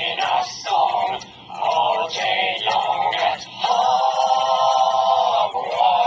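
Voices singing a chanted song in short sung phrases, then one long held note starting about three and a half seconds in and lasting about two seconds.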